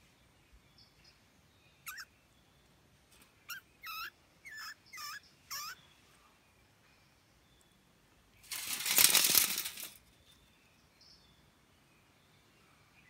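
A mouse caught in a wire-mesh cage trap squeaking: about six short, high squeaks with a bending pitch, mostly in a quick run. Later a loud rasping noise of about a second and a half, the loudest sound here.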